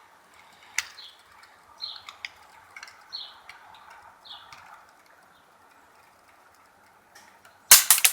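Faint clicks and scrapes of small metal parts and a driver being handled while the Beep device is taken apart, with a short high chirp about every second in the first half. Near the end comes a burst of loud clattering.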